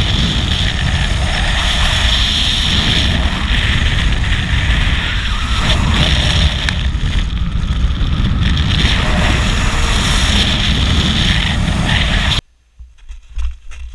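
Loud, steady rush of wind on the camera's microphone from the airflow in paraglider flight. It cuts off suddenly near the end.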